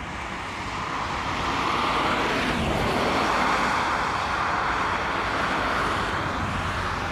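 Engine noise from something passing, swelling to a peak about three seconds in and then fading away.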